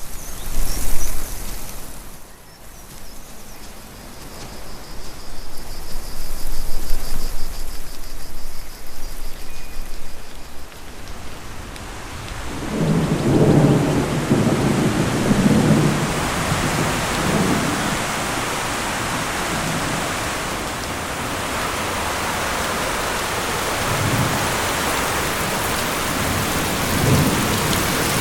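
Rain with thunder: a sharp crack about a second in, then rain building into a steady heavy downpour, with a deep rumble of thunder a little before the middle.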